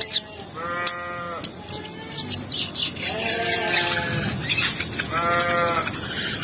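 Three drawn-out, bleat-like animal calls, each under a second, mixed with short high chirps.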